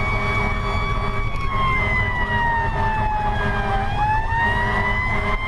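Fire truck siren heard from inside the cab while the truck drives: one steady tone that sags in pitch around the middle and climbs back up, over the low rumble of the engine and tyres.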